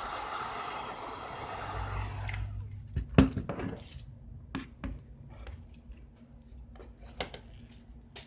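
A heat gun blows steadily and cuts off suddenly about two seconds in. Then come a string of sharp clicks and taps from pry tools and glass being handled, the loudest a little after three seconds.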